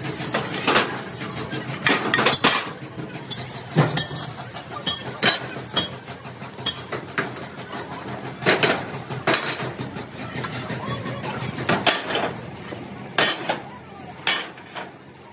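Pieces of cut steel plate clanking and clinking against a steel truck-body floor frame as they are set down one after another. The metal-on-metal knocks come at irregular intervals, about one a second, each with a short ring.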